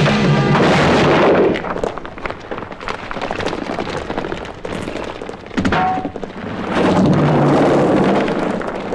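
Noisy commotion of thuds and scuffling feet, with a heavy wooden door banged open at the start. The sound swells loud at the start and again near the end.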